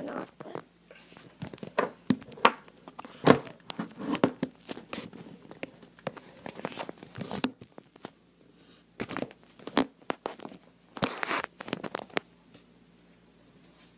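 Irregular rustling, crinkling and rubbing from handling, in many short uneven scrapes, dying down for the last couple of seconds.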